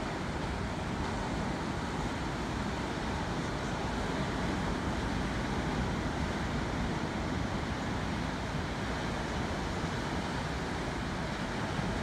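Small ocean waves washing onto a rocky shore: a steady rush of surf.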